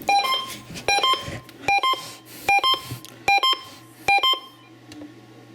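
Short electronic beeps in quick pairs, the two beeps of each pair at different pitches, repeating roughly every 0.8 seconds on a radio broadcast's emergency-alert audio. They stop about four and a half seconds in, leaving a low hum.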